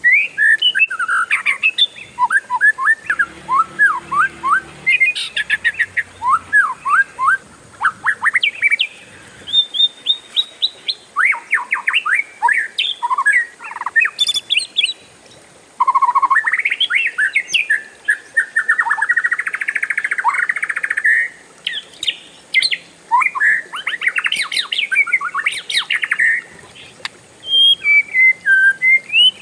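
Oriental magpie-robin (kacer) singing a long, varied song of quick sweeping whistles, trills and a buzzy rattling phrase, with only brief pauses between the runs.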